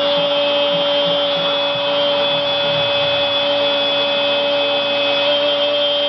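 A Spanish-language TV commentator's long, sustained goal cry ("goooool"), held on one steady pitch over crowd noise, heard through a television's speaker.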